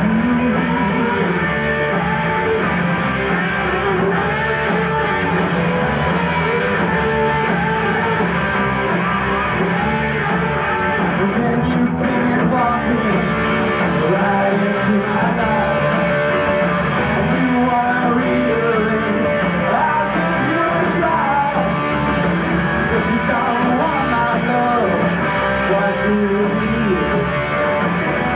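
Live rock band playing a song, with electric guitar prominent.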